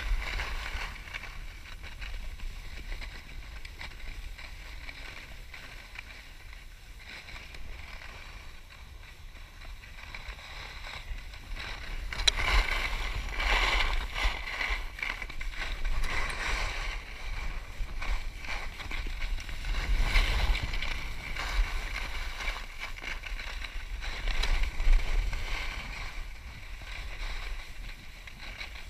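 Skis sliding and scraping over firm snow in uneven surges, with wind rumbling on the action camera's microphone; the scraping gets louder about halfway through.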